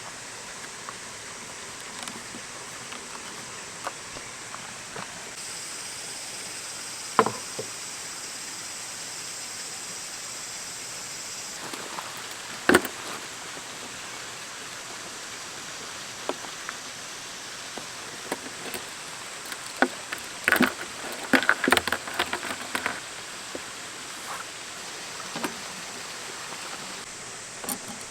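Steady outdoor hiss with scattered sharp clicks and knocks, the loudest about seven and thirteen seconds in, and a quick run of them around twenty seconds in.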